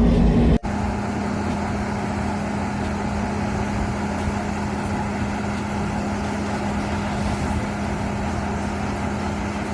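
A large engine of harvest machinery running steadily: an even mechanical drone with a constant hum. It starts after an abrupt cut from a louder engine sound about half a second in.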